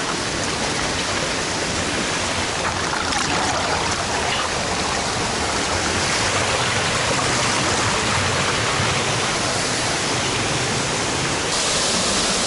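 Steady, dense rush of water falling and splashing at a small waterfall, turning brighter and hissier about a second before the end.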